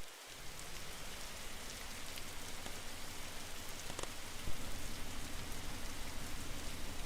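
Air conditioner running with a steady rushing noise of airflow and a low hum, with a couple of faint clicks about four seconds in.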